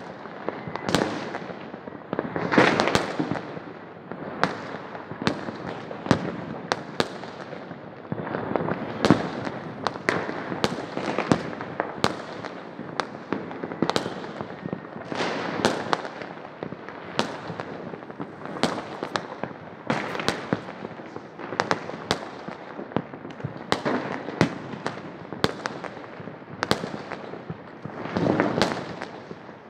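Many Diwali fireworks and firecrackers going off at once across a city: a continuous din of distant bangs with frequent sharp cracks and a few louder swells of bursts.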